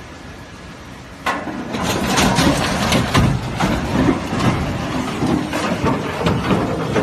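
A steel truss bridge collapsing under an overloaded truck carrying an excavator: a sudden loud crash about a second in, then several seconds of crashing and clattering as metal, rock and the vehicle fall.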